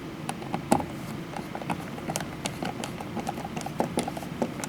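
Small, irregular clicks and ticks of a screwdriver and metal mounting screws as a smart dimmer switch is fastened into an electrical wall box, with one louder knock about three quarters of a second in.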